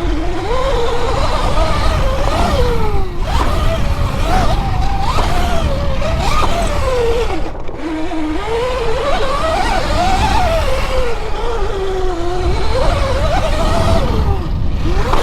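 72-volt Sur Ron electric dirt bike's motor whining while it is ridden, its pitch rising and falling again and again with the throttle over a steady low rumble.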